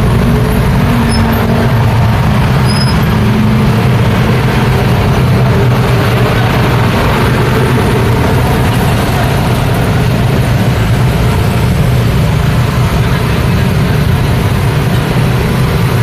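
Busy street traffic: a crowd of motor scooter engines running and pulling away close by, mixed with passing cars and trucks in a steady, loud rumble.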